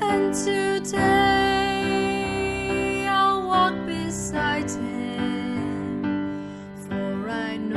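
Slow music with long held notes and chords that change every second or so.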